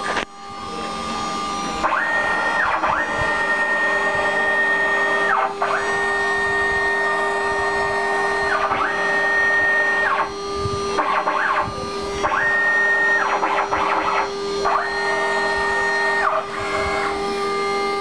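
Desktop CNC router at work. The spindle runs with a steady hum while the stepper motors whine at a high pitch on each move of the gantry, the pitch sweeping up as they accelerate, holding and sweeping down as they stop. There are about six moves, with irregular crackling between them.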